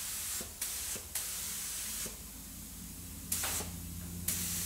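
Cheap gravity-feed paint spray gun hissing as it sprays black paint in short trigger pulls, the hiss cutting off and starting again several times, with the air valve opened only a little.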